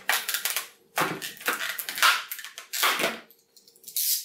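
Handling noise from a plastic Hasbro Neutrona Wand toy replica and its packaging: five short bursts of scraping and rustling as it is turned and worked at by hand, the last a thin hiss near the end.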